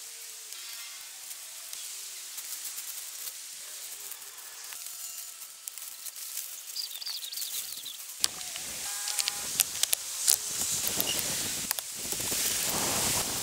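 Woodland outdoor sound: a steady high hiss with faint chirps at first, then, about eight seconds in, louder rustling and crackling with sharp clicks and snaps as leafy branches, reeds and sticks are handled and trodden.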